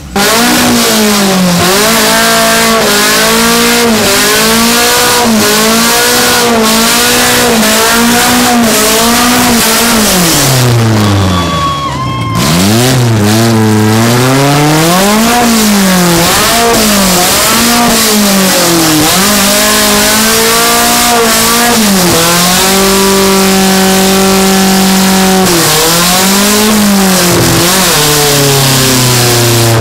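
A car engine is revved hard during a burnout while the rear tires spin. Its pitch swings up and down again and again as the throttle is pumped, drops briefly about eleven seconds in, and holds steadier and high for a few seconds near the end.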